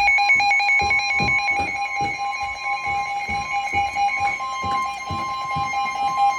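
Emergency Alert System attention signal: two steady tones sounding together as one continuous alarm, heralding a severe thunderstorm warning.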